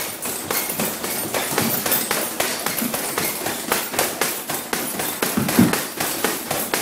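Boxing-training impacts in a dense, irregular run of several a second: thuds and slaps of gloved punches and feet on a wooden ring floor. There is one louder thud about five and a half seconds in.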